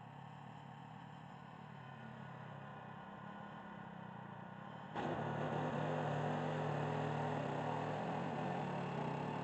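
A faint steady hum. About halfway through, a louder motor-driven machine with a rushing noise switches on and runs steadily.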